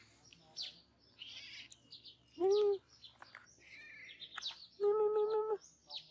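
A hungry kitten meowing twice, two short, even-pitched mews a couple of seconds apart, the second one longer. Birds chirp and twitter throughout in the background.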